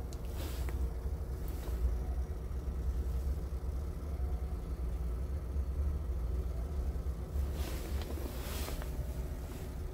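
Scania P truck's diesel engine idling steadily, a low rumble heard from inside the cab, with a few brief rustles and knocks of the camera being handled.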